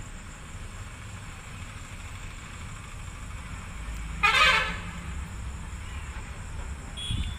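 A short vehicle horn toot a little over four seconds in, over a steady low rumble of background noise. A faint brief high tone and a low knock come near the end.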